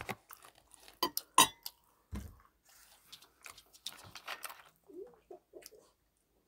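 A metal fork clinks twice against a ceramic plate, then a plastic cola bottle is handled and its cap twisted open with a soft hiss and rustle.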